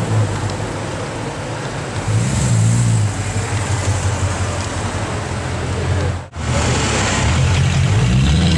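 Mercedes-Benz C63 AMG Black Series' 6.2-litre V8 burbling through an aftermarket iPE exhaust as the car moves off at low speed, the engine note swelling twice with throttle, about two seconds in and again near the end.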